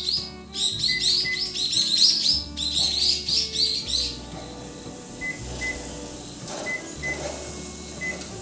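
Rapid high bird chirping, many short notes a second, over background music with a steady bass. The chirping stops about halfway through and the music carries on alone.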